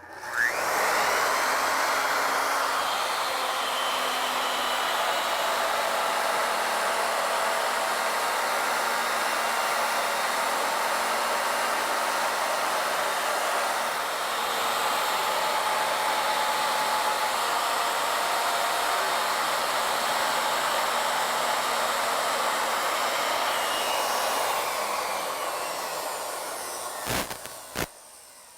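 Wood router starting up with a rising whine, then running steadily as its 1-inch rope molding bit cuts a spiral groove along a wooden table leg on an ornamental mill. About 25 seconds in it spins down, followed by two sharp clicks.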